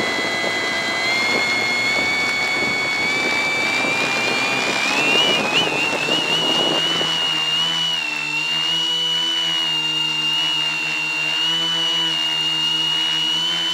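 Quadcopter's electric motors and propellers, heard close up from the camera on board. They whine higher and higher over the first six seconds as they throttle up, then hold a steady pitch with a low hum under the high whine.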